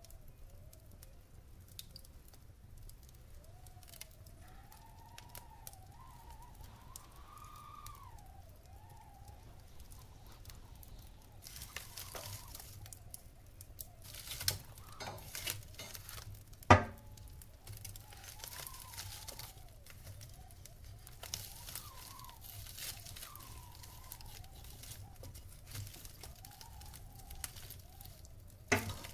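Wood fire crackling in a fireplace: scattered crackles, thicker from about halfway, with a sharp loud pop about two-thirds of the way through and another near the end. A faint whistling tone wavers up and down underneath.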